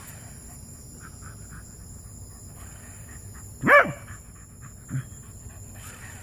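A Pembroke Welsh Corgi barks once, a single sharp bark about three and a half seconds in, with a much fainter short sound about a second later.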